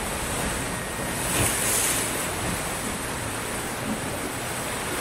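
Ocean surf breaking and washing up a sandy shore: a steady rush of water that swells about a second and a half in.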